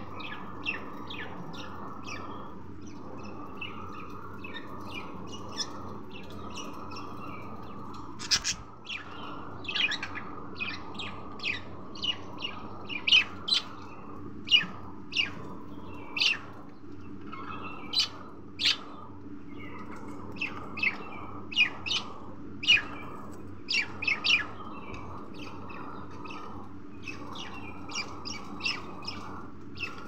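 Budgerigar chirping: many short, sharp chirps in quick irregular runs, loudest in the middle stretch, over a steady background hum.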